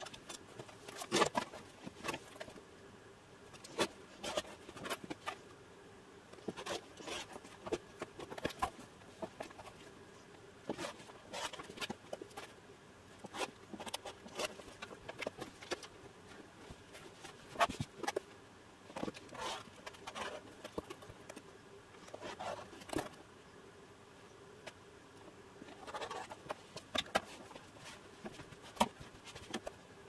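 Irregular rustling of cotton fabric and cotton batting being handled and smoothed on a cutting mat, with scattered light taps and knocks as tools are picked up and set down.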